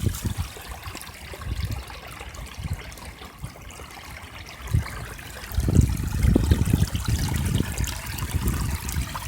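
Small rain-fed stream trickling and running over its bed, with irregular low rumbles on the microphone that are loudest about six seconds in.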